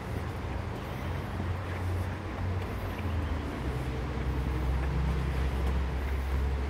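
Low engine rumble of a distant vehicle, growing louder over several seconds.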